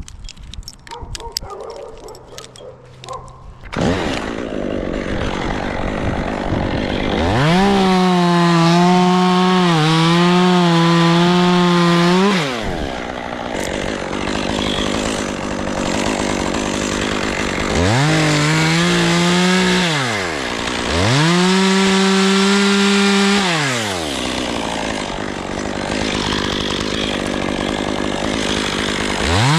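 Two-stroke chainsaw cutting wood: after a few seconds of light knocks the saw comes in, then is opened up to full throttle three times, holding a high steady whine for a few seconds each time and dropping back between cuts.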